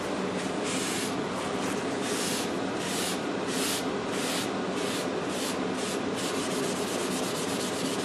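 A paper towel wiping wet pumice slurry off a lacquered wooden cabinet top, in a run of swishing strokes that quicken toward the end.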